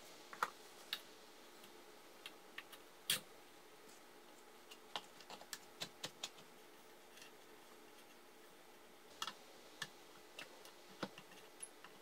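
Sparse light clicks and taps of ceiling fan parts being handled and fitted together on a downrod, the sharpest about three seconds in.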